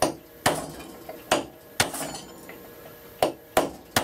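Hammer striking a steel chisel, about six sharp, ringing blows at an uneven pace, some in quick pairs, cutting a recess in a hardwood plane body to seat a nut.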